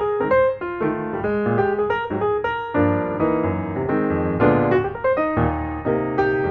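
Background piano music: a quick run of notes with chords underneath.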